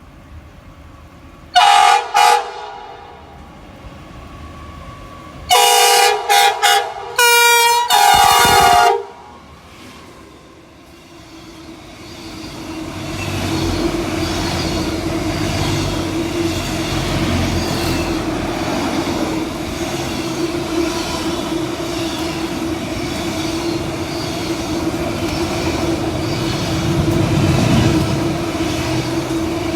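Train horn sounding two short blasts, then a quick run of blasts about five to nine seconds in, the last one longer. The train's running noise then builds from about eleven seconds and goes on loud and steady as it passes, with a steady hum.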